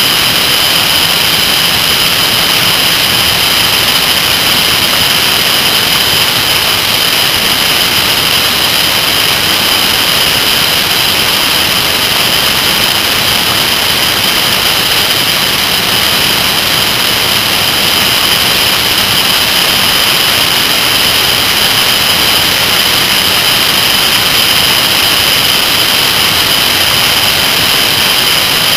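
Steady loud rush of wind and road noise on a microphone mounted on a moving Kawasaki ZR-7S motorcycle, with a constant high whine over it. No change in engine pitch stands out through the curves.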